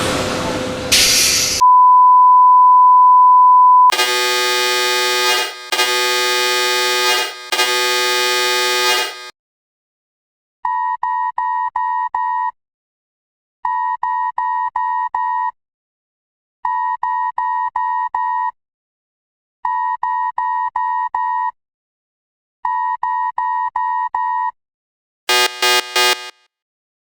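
Electronic earthquake-warning alert tones. A short burst of noise, then a steady beep tone for about two seconds, three long harsh horn-like blasts, and then groups of rapid beeps repeating about every three seconds, changing to a different beeping pattern near the end.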